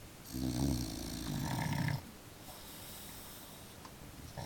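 A dog asleep on its back, snoring: one low, buzzing snore of about a second and a half, a pause, then the next snore starting near the end.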